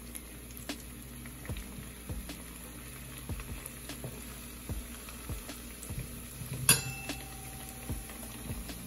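Green plantain chunks on their first fry in hot oil in a small skillet: steady bubbling with scattered small pops. Metal tongs tap against the pan now and then, loudest once about seven seconds in, with a short metallic ring.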